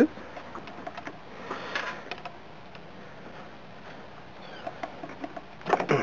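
Light clicks and rustling of hands handling car battery cables and terminal hardware, with a short louder rustle near the end.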